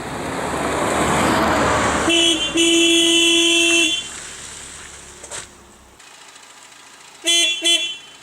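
Car horn honking: a short toot, then a long blast of over a second, and two quick toots near the end, after the rising rush of traffic noise.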